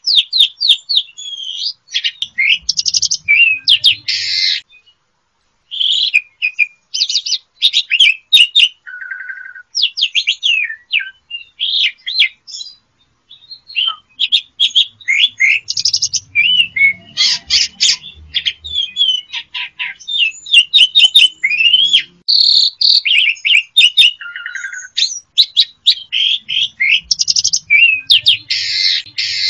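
Javan pied starling (jalak suren) singing a long, varied song of quick chattering notes, short whistles and harsh rasping phrases, with a brief pause about five seconds in.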